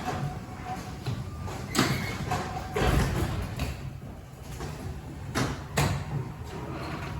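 Electric garage door opener running a sectional garage door along its tracks: a steady low hum with several clanks and knocks, the loudest about two, three and five and a half seconds in.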